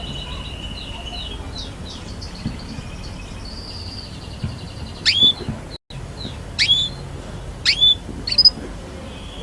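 Domestic canary singing: fast rolling trills and held whistled notes, then four loud, sharp chirps that sweep down in pitch in the second half.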